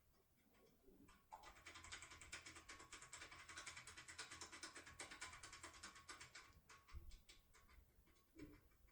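Faint, rapid clicking of a foil lock-pick tool being swung back and forth in a pin cylinder lock. The clicking starts about a second in, runs for about five seconds, then thins to a few scattered clicks.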